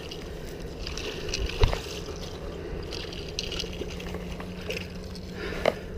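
Water splashing and trickling against a steady rush of noise, with two sharp knocks, one about a second and a half in and one near the end.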